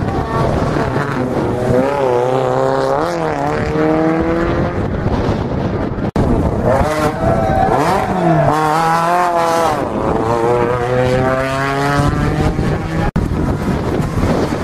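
Rally cars' engines revving hard as each car accelerates out of a hairpin, the note climbing in pitch and dropping back at each gear change. The sound breaks off abruptly twice as one car's pass gives way to the next.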